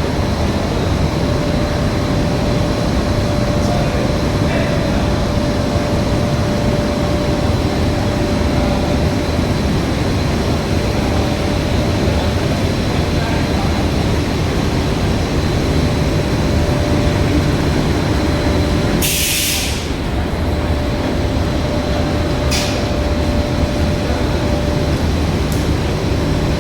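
Film window de-metalizing and washing machine running with a steady mechanical drone and a thin constant whine. About two-thirds of the way through comes a sharp hiss lasting about a second, then a short click a few seconds later.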